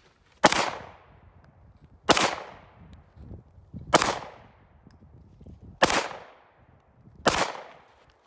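Five pistol shots fired at a slow, even pace, one every one and a half to two seconds, each a sharp crack with a short echoing tail.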